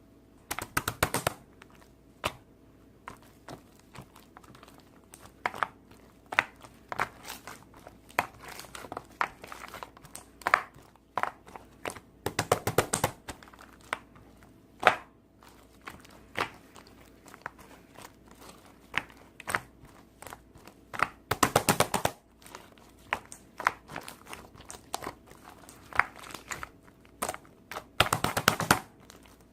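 Hands pressing, squishing and stretching slime, making scattered sharp clicks and pops. Every several seconds there is a denser crackly, crinkling burst.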